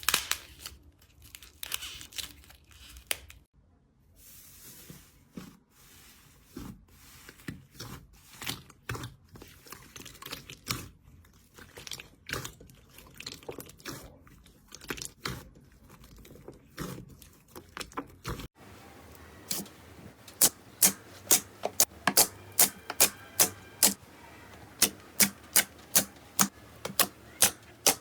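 Slime being pressed and poked, giving crisp irregular crackles and pops; about two-thirds of the way in the sound changes to a run of sharp, even clicks, about two a second.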